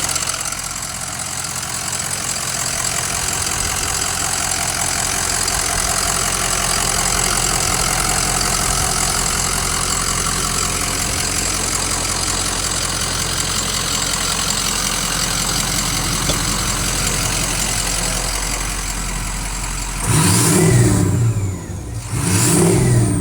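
2004 Ford F-250's 6.0 Powerstroke V8 turbo-diesel idling steadily, fully warmed up after a couple of hours of driving. Near the end it is revved twice, about two seconds apart, each rev falling back.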